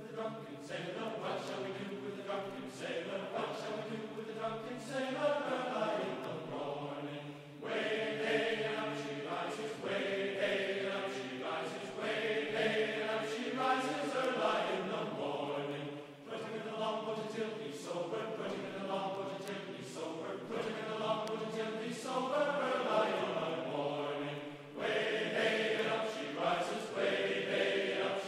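Background music of a choir chanting in held chords that shift every second or two, in phrases broken by short pauses about every eight seconds.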